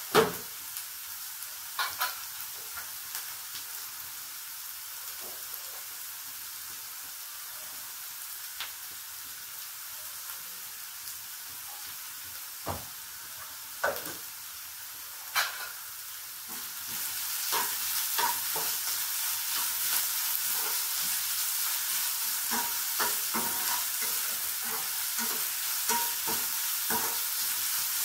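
Shredded vegetables sizzling in oil in a non-stick kadai, with a few sharp clicks in the first half. About two-thirds of the way through, the sizzle grows louder and a perforated steel ladle clatters and scrapes as it stirs the vegetables.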